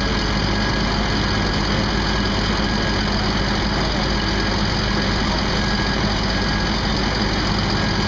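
An engine running steadily at a constant speed, with an unchanging low hum.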